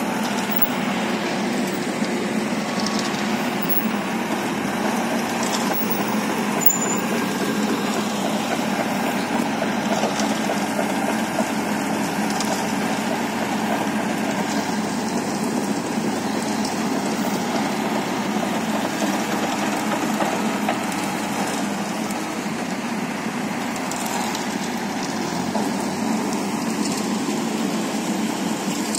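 Self-loading concrete mixer's engine running steadily.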